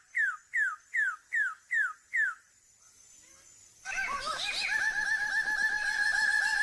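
A bird of paradise calling: a run of about seven short notes, each gliding downward, roughly three a second. After a pause of over a second, a fast rattling trill at a steady pitch starts about four seconds in.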